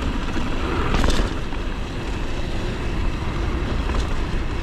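Mountain bike rolling fast down a dirt trail: steady rumble of wind on the microphone and tyres on the ground, with the bike rattling and a couple of sharp knocks, about a second in and again near the end.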